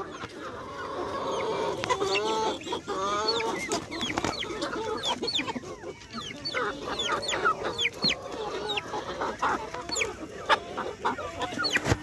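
A flock of chickens, mostly Kadaknath, clucking and calling, with many short, high calls that slide down in pitch. Scattered sharp clicks run through it.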